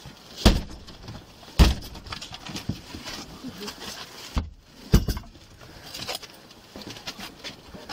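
A battering ram hitting a wooden apartment door as officers force entry: three heavy blows, the first about half a second in, the next about a second later and the last around five seconds in, with a lighter knock just before it.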